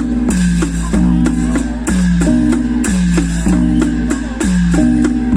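Music: a short descending melodic phrase repeats about once a second, with a sharp attack on each beat, over a steady low drone.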